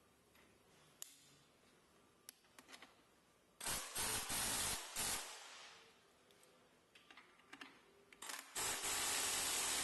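Pneumatic impact wrench running in two bursts of about a second and a half each, tightening the bolt of the metal clamp band that holds the pump's liquid chamber. The first burst comes midway and the second near the end, with small clicks of tools and parts being handled in between.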